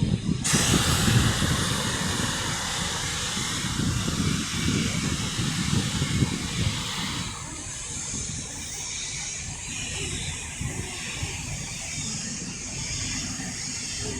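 A train's compressed air venting in a sudden, loud hiss that weakens after about seven seconds, over the low rumble of the train.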